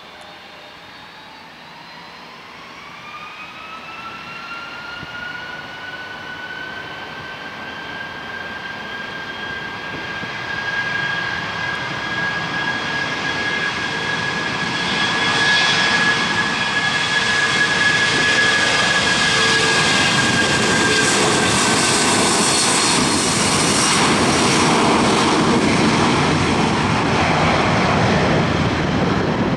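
United Airlines Boeing 757-300's jet engines spooling up to takeoff thrust for its takeoff roll: a whine rises in pitch over the first few seconds and then holds steady. Under it a rushing jet noise grows much louder, loudest in the second half as the airliner accelerates past.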